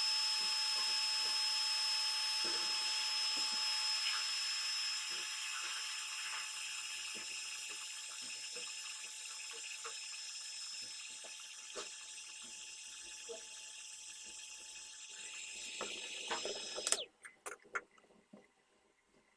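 A small electric power tool runs with a steady motor whine and hiss, slowly fading. It is switched off abruptly near the end, followed by a few light clicks of handling.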